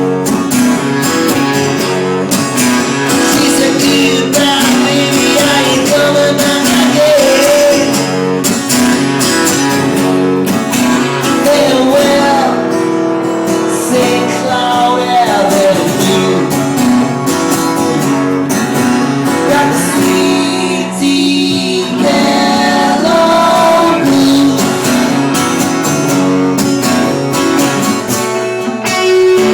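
Live acoustic guitar music, strummed and picked in a blues style, with a voice singing over it.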